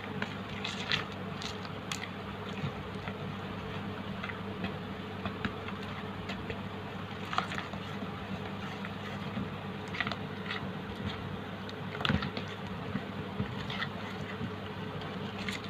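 Silicone spatula stirring a wet egg-and-flour batter in a plastic bowl, with scattered soft scrapes and clicks, a few sharper ones, over a steady low hum.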